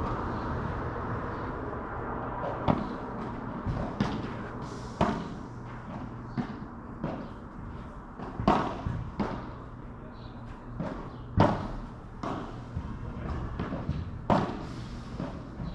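A dozen or so sharp thumps and knocks at irregular intervals over a steady low background.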